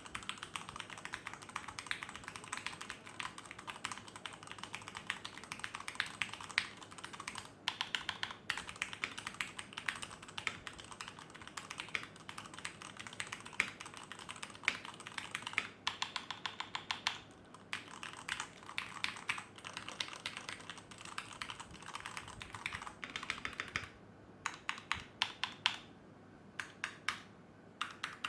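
Fast, continuous typing on a Tecware B68 mechanical keyboard with Gateron Yellow linear switches, after a tape mod: a dense stream of keystroke clacks with a few short pauses. This is a typing test of the keyboard's modded sound.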